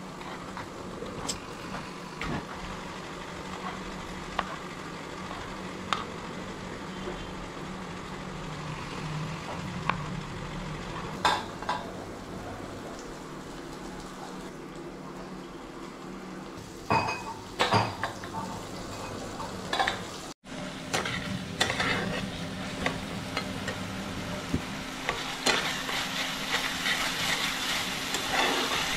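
A knife cutting tomato on a plastic chopping board, with a few sharp knocks and clatters of kitchenware. About two-thirds of the way in, onions frying in oil in a frying pan take over, stirred and scraped with a spatula, the sizzle growing louder near the end.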